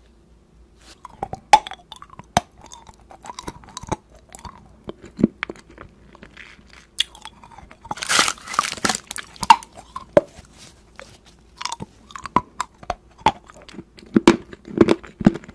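Close-miked crunching and chewing of Orion's candy cigarettes, chalky pressed-sugar sticks, in many sharp separate bites. Around eight seconds in, a brief rustling burst as a cardboard candy-cigarette box is handled.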